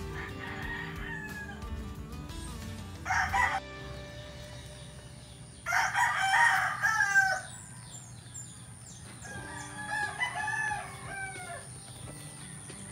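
Rooster crowing three times: a short call about three seconds in, a loud, longer crow at about six seconds, and a fainter crow at about ten seconds.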